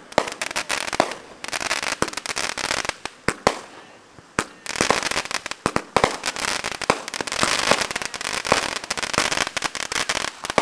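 Fireworks crackling: dense, rapid strings of sharp pops in clusters, with a lull of about a second near the middle before the crackling picks up again.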